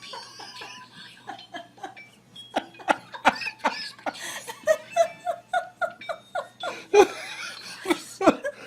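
A person laughing in a run of short repeated bursts, building up a couple of seconds in.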